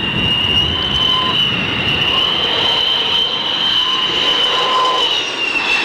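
F-4 Phantom II jet engines whining: a steady high-pitched whine that wavers slightly in pitch, over a rushing noise.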